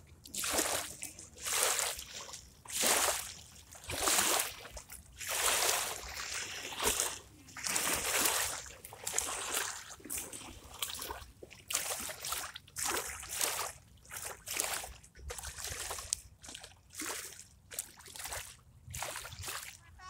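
Small lake waves lapping and sloshing against a muddy, grassy bank, one splash about every second and a half at first, then quicker and softer in the second half.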